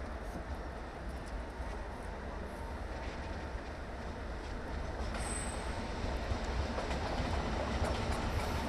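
Train approaching on the rails: a low, steady rumble that slowly grows louder.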